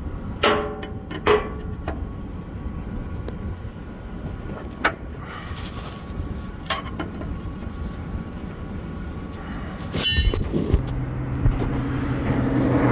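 Sharp metallic clicks and clinks of hand tools, locking pliers and a wrench, on an air-line fitting under a semi truck, a few seconds apart. About ten seconds in comes a quick metallic rattle, then a steady low vehicle engine drone that grows louder toward the end.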